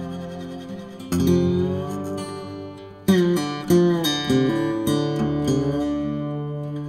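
Acoustic guitar music: a few strummed chords, each left to ring out and fade before the next.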